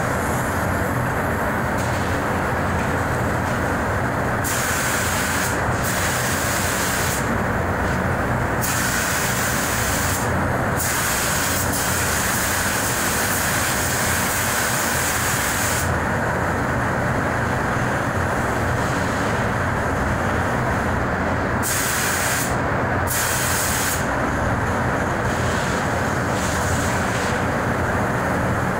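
Compressed-air paint spray gun hissing in bursts as clear coat is sprayed: several short trigger pulls and one long pass of about five seconds in the middle. Under it, the spray booth's air handling makes a steady rushing noise.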